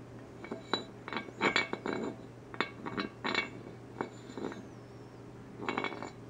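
Light metallic clinks and taps of an 82 mm forged aluminium piston being handled against a metal head gasket on an engine block: a quick run of clinks in the first few seconds, a few more around four seconds in, and a short cluster near the end.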